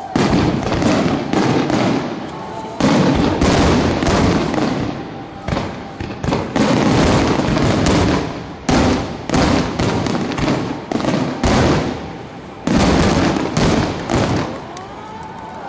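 Aerial firework shells bursting in quick succession, about twenty sharp bangs in fifteen seconds, each trailing off in a long echoing rumble.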